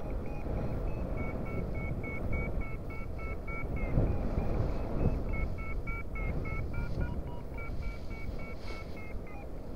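Paragliding variometer beeping its climb tone, rapid short beeps at about four a second with small shifts in pitch, over a steady rush of wind on the microphone. The beeping is the sign that the wing is climbing in lift.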